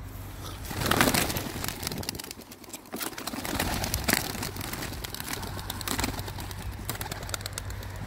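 Young homing pigeons scrambling out of a wooden release box and taking off, a run of quick wing flaps and scuffles, loudest about a second in.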